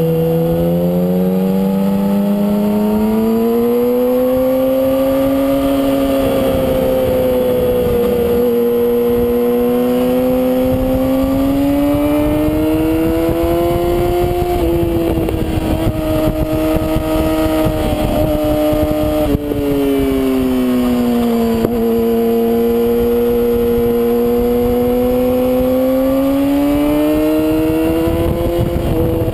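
Inline-four sport bike engine running at high revs under riding, its pitch swelling and falling slowly through the bends, with a sudden step in pitch about halfway through like a gear change. Heavy wind noise buffets the helmet-free camera mount.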